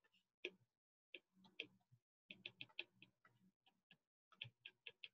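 Faint, irregular taps and clicks of a stylus on a tablet screen as words are handwritten, several small ticks a second with short gaps between.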